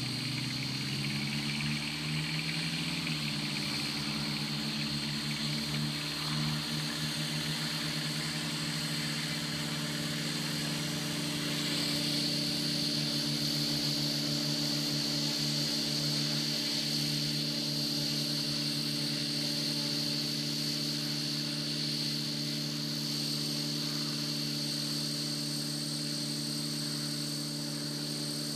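Radio-controlled model helicopter flying low, a steady rotor hum with a high whine over it. The pitch wavers in the first few seconds, and the whine grows louder about twelve seconds in.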